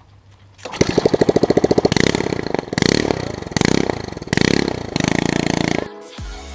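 Small lawn mower engine running with its muffler removed, a fast popping beat of firing pulses that surges in about six bursts, each lasting around a second. The engine barely runs without starting fluid sprayed into a hole cut in its air box. Near the end it cuts to electronic music.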